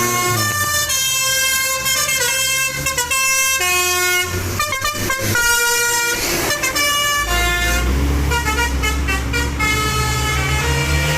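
Tour bus telolet horn, a multi-tone musical air horn, playing a rapid tune of stepping notes. A deep low drone joins about seven seconds in.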